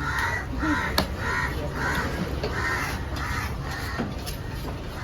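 Crows cawing in a run of harsh caws about every half second, with a couple of sharp knocks among them.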